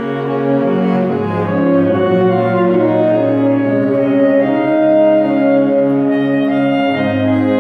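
Saxophone ensemble playing slow, sustained chords in several parts, the notes held and changing about every second over a low bass line.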